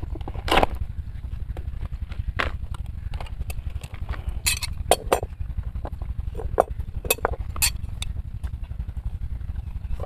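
Scattered light clicks and taps of hands working a rubber football bladder and a pair of large steel scissors on a plastic cutting board, over a low steady rumble.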